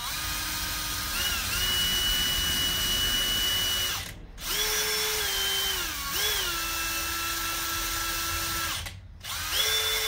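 Cordless drill spinning a cotton swab to scrub out a carburetor, run in three stretches with brief stops about four and nine seconds in. The motor's whine shifts in pitch a few times as the trigger speed changes.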